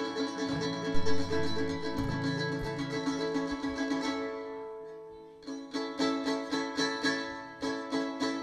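Acoustic string instruments strumming a repeated chord, with a few low bass notes in the first couple of seconds. The strumming dies away about four seconds in, then picks up again in an even rhythm of about two to three strokes a second.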